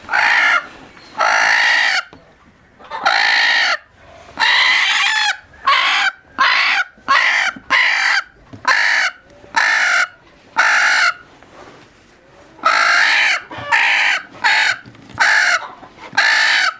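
Chickens calling loudly over and over, about fifteen calls in a row. Some calls are short and others are drawn out to about a second.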